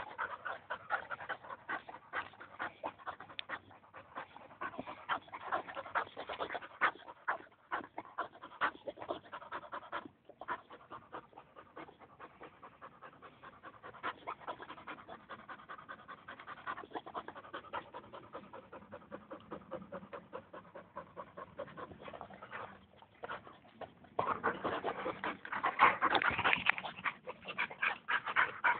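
Boxer dog panting with quick, rhythmic breaths, louder near the end.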